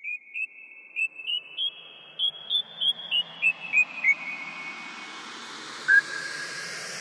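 A string of short, high whistle-like chirps, about three a second, stepping up in pitch and then back down, over a whoosh that slowly swells. One longer, lower held note comes near the end.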